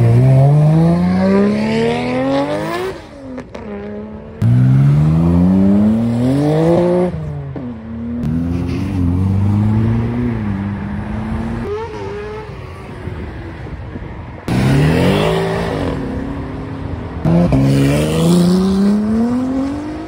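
Several sports cars accelerating hard one after another, among them a Nissan Skyline GT-R R34 and a Ferrari. Each engine's pitch climbs steeply as it revs out, then drops at a shift or is cut off, about half a dozen times.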